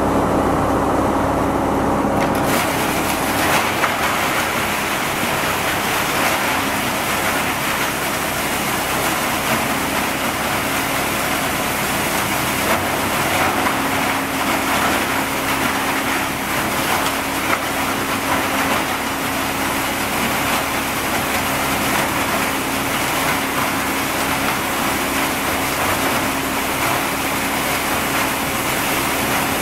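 Wood sawdust crusher running with a steady hum and a loud rushing noise that grows stronger about two seconds in, with scattered knocks and scrapes from scrap wood being shovelled up off the concrete floor and fed in.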